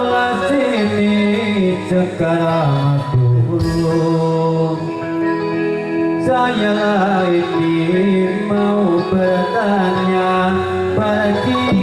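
Dolalak dance music playing: a melody of held and wavering notes over a continuous accompaniment.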